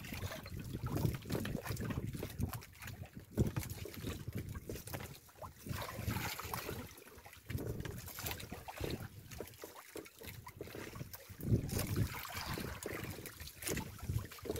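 Waves lapping and slapping against the hull of a small outrigger fishing boat drifting on choppy sea, with gusts of wind on the microphone.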